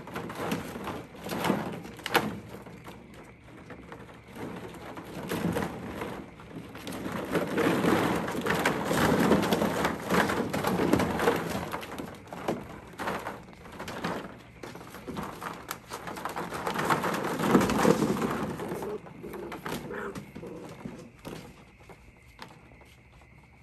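Plastic ball-pit balls clattering and rustling in a plastic wading pool as Golden Retriever puppies scramble and wrestle through them. The busiest bursts come in the middle and again a little before the end. In the last few seconds the play dies down, leaving crickets chirring steadily.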